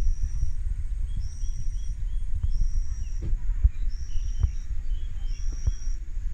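A bird giving a high, even note over and over, about once every second and a half, with softer short chirps between. Under it runs a loud low rumble, with scattered light taps.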